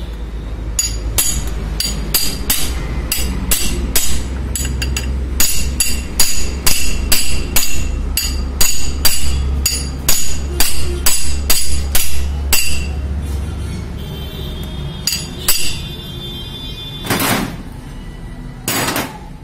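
Sharp metal-on-metal knocks with a ringing edge, about two a second for some twelve seconds, from a socket wrench and metal tools at an opened gearbox casing. Two short rushes of noise follow near the end.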